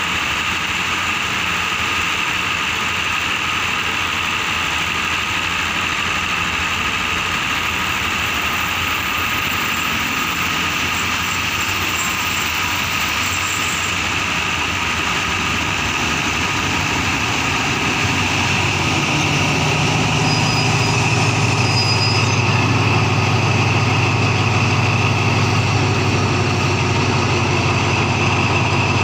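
Diesel-electric locomotive arriving at a station, its engine running slowly. Its low hum comes in about two-thirds of the way through and grows louder as the locomotive draws alongside, over a steady background of engine noise.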